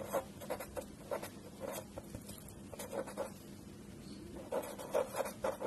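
Pen writing on paper: a run of short, irregular strokes, a little louder near the end.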